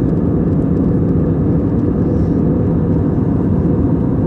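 Steady low rumble of an Airbus A320 airliner in flight, heard inside the passenger cabin.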